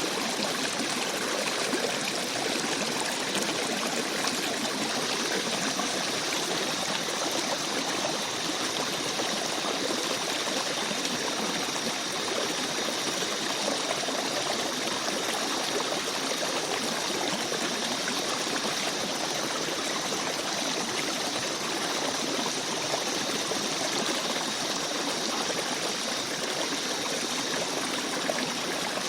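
A small forest stream babbling and trickling over rocks, a steady even rush of water.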